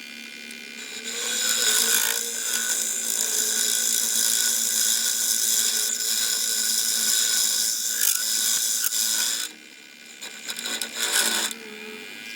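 Wood lathe running with a steady motor hum while a turning tool cuts a spinning wooden bowl: a loud hissing scrape starts about a second in and stops at about nine and a half seconds, followed by a couple of short cuts near the end.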